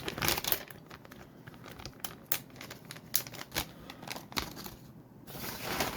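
Small plastic bag crinkling and rustling in the hands, in quick irregular crackles, as the bagged fishing lure is handled.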